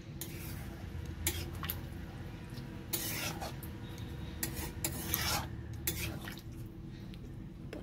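Metal spatula stirring a thick vegetable curry in a metal kadai, scraping against the pan's bottom and sides in several short, irregular strokes.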